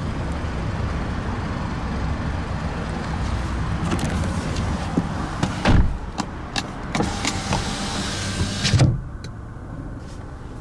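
Power window motor in a 2015 Mazda6's driver door running as the glass is moved with the door switch, a whine that stops suddenly near the end, over the steady hum of the idling engine. A single thump comes a little past the middle.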